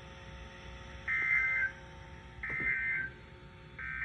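NOAA Weather Radio EAS/SAME digital data tones: three short, harsh two-tone warbling bursts, about a second and a half apart. They are the end-of-message code that closes the flood warning broadcast.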